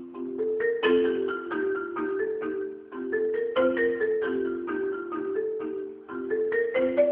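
Solo marimba played with mallets: a quick, steady run of struck notes over sustained low chords. The phrases break off briefly about every three seconds.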